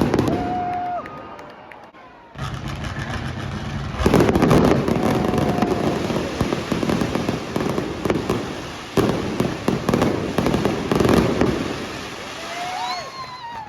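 Fireworks display going off: a sharp bang at the start, then about two seconds in a dense run of bangs and rapid crackling, with the loudest bursts around four and eleven seconds in. A few whistling tones slide up and down near the end.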